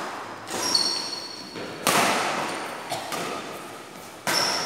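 Badminton rally: racket strings striking the shuttlecock about every second and a half, each hit sharp and echoing in a large hall. Short high squeaks from shoes on the court floor come between the hits.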